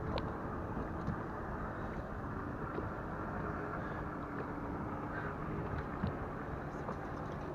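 Steady low hum of a boat motor under wind noise on the microphone, with a few faint knocks.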